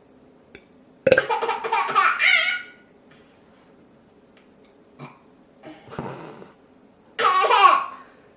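A person burping loudly twice: a long drawn-out burp about a second in, then a shorter one near the end that falls in pitch, with a quieter short sound between them.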